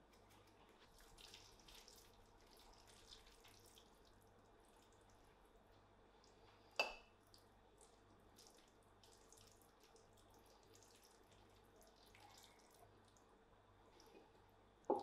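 Quiet, wet scraping and shuffling of creamy pasta being lifted and twirled onto a ceramic plate. A metal utensil gives one sharp clink with a short ring about seven seconds in, and there is another sharp knock near the end.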